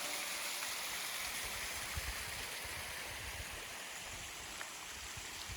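Steady rush of flowing water, slowly growing quieter.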